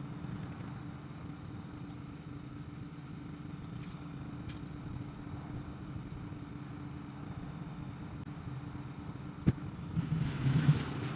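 Pickup truck engine running steadily with a low, even hum. There is a sharp click about nine and a half seconds in, then a few louder knocks near the end.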